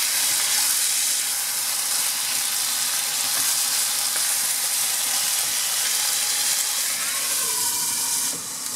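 Marinated chicken pieces sizzling steadily in hot oil in a nonstick wok, stirred with a wooden spatula. Near the end a glass lid goes on and the sizzle turns quieter.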